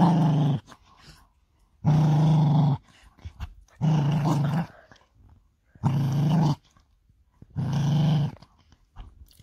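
A dog growling while it mouths and gnaws a person's hand: five steady growls of about a second each, one every two seconds or so.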